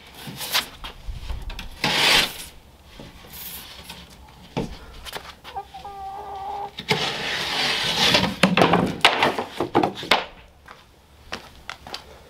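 A utility knife slicing through the paper of a snapped sheet of moisture-resistant drywall, a cut heard twice, about two seconds in and again near eight seconds. Then knocks as the sheet is laid flat on concrete. A chicken clucks briefly about six seconds in.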